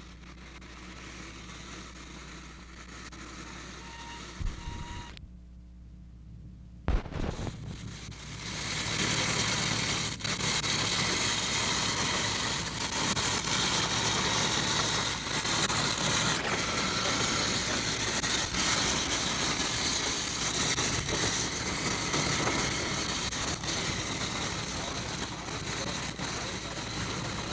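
Badly worn magnetic film sound track: a low hum with faint hiss, a brief dropout ended by a sharp pop about seven seconds in, then a loud steady rushing noise with scattered clicks.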